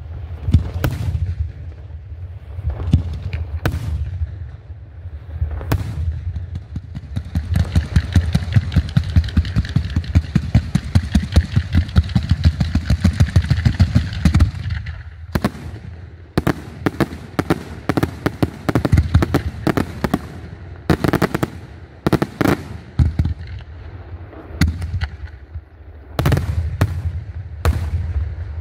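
Fireworks display: scattered sharp bangs, then a dense rapid-fire volley of launches from about 7 to 14 seconds in, then fewer, louder single shell bursts spaced a second or two apart. A steady low rumble runs underneath.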